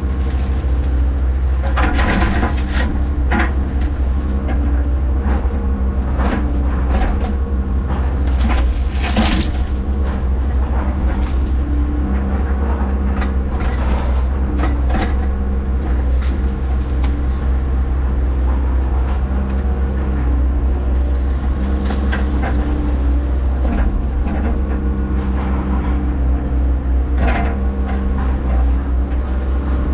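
Hyundai HX140AL excavator's diesel engine running steadily under load, with scattered sharp knocks and cracks of the bucket and thumb working brush. The loudest knocks come about 2 and 9 seconds in.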